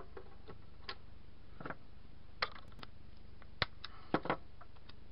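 Light clicks and taps of small plastic battery-housing parts and a thin metal terminal being handled and fitted by hand, scattered and irregular, with a quick cluster of clicks near the end.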